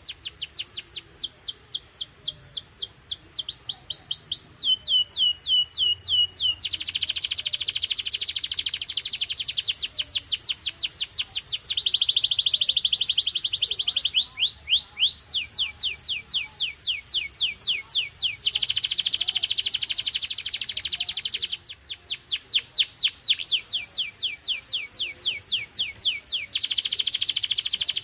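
Domestic canary singing its song: the same short note is repeated several times a second, each sweeping down in pitch. Every few seconds it switches to a new note or to a very fast buzzing roll.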